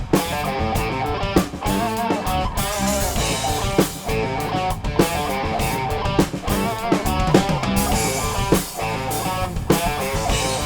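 Rock band music: electric guitar playing over a drum kit beat with bass.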